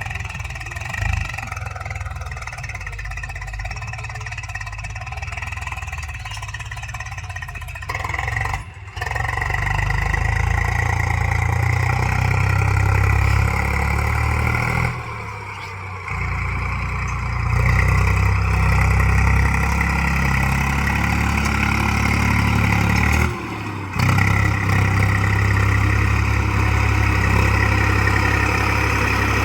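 Heavy diesel machine engine running steadily. It drops out briefly twice and is louder after the first break.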